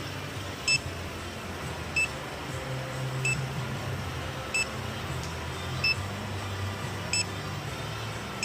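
Electronic refrigerant leak detector beeping slowly and evenly, one short high beep about every 1.3 seconds, over a low steady hum. The even slow rate means it is not picking up refrigerant.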